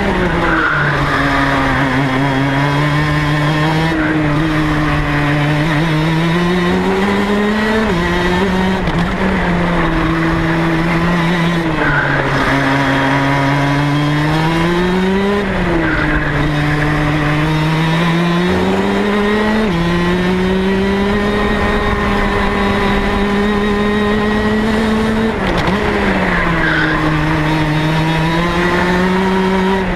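Rotax DD2 kart's 125 cc two-stroke single-cylinder engine at speed on a lap. Its loud note climbs steadily and then drops or jumps sharply in pitch several times as the revs change.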